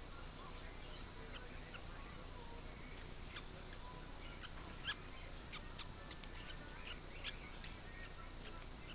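Scattered short, high bird chirps and squeaks over a steady background hiss, the loudest one about five seconds in and another about seven seconds in.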